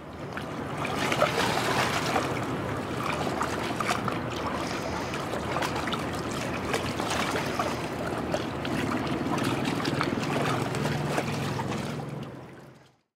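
River water lapping and splashing in a steady, busy wash of small irregular splashes, fading in at the start and out shortly before the end. A low steady hum joins in under it in the later part.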